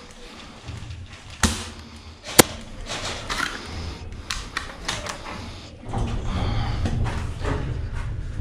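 Scattered clicks and knocks inside a bare metal shipping-container room, with one sharp crack about two and a half seconds in. A steady low rumble sets in about six seconds in.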